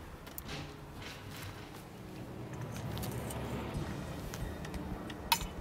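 Low, steady outdoor background rumble with a few light clicks and clinks of handled objects, and one sharp clink about five seconds in.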